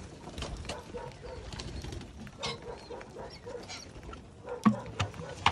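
A flock of pheasants feeding on scattered grain: short, soft low calls repeating among many small pecking clicks on dry ground, with two sharp knocks near the end.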